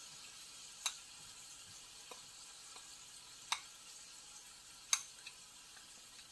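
Faint, steady sizzle of chicken thighs pan-frying in oil, with a few sharp pops.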